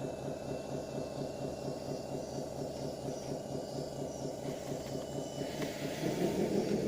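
1:12 scale model bulldozer running, a steady rhythmic engine-like beat that gets louder about six seconds in.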